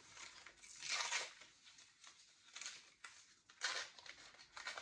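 A small wrapped gift package being unwrapped by hand: its wrapping crinkles and tears in several short rustling bursts, the loudest about a second in.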